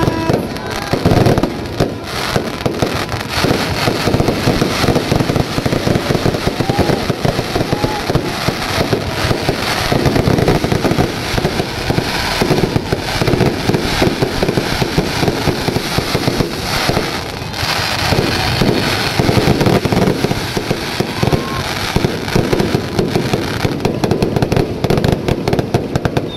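Aerial fireworks going off in a continuous, rapid barrage of bangs and crackles.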